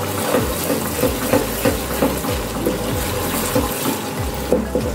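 Masala sizzling in hot oil in a kadai, with a wooden spatula stirring and scraping against the pan in quick repeated strokes. The masala is fried down to the stage where the oil separates.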